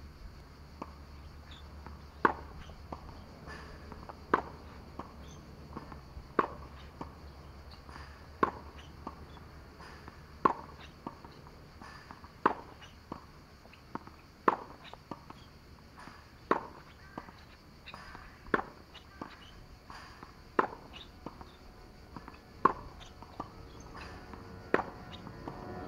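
Tennis balls struck by racquets in a groundstroke rally: a sharp pop about every two seconds, with fainter hits and bounces in between.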